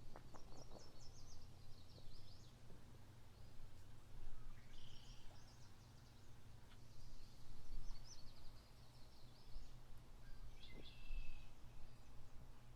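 Songbirds singing in short phrases of rapid high twittering notes, four phrases spaced a few seconds apart, over a low steady background rumble. A few light knocks come near the start.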